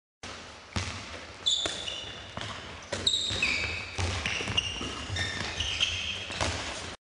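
A handball bouncing and slapping on a sports hall floor and into players' hands in irregular thuds. Sneakers squeak sharply on the floor throughout as the players cut and jump.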